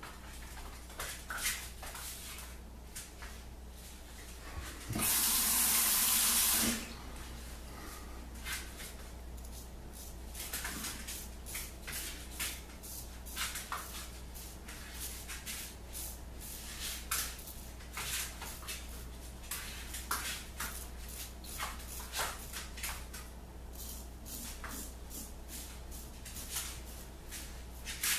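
Red Imp Wedge 132 straight razor scraping through lathered stubble in many short strokes, a blade the owner feels needs a touch-up. A tap runs briefly about five seconds in, the loudest sound.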